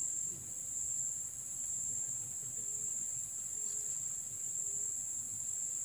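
Insects in a steady, high-pitched chorus: one continuous shrill drone with no break.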